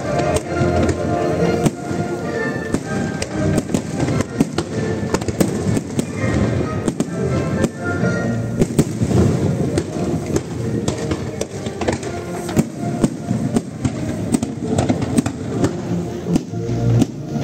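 Fireworks bursting and crackling in quick succession over the sea, with music playing underneath.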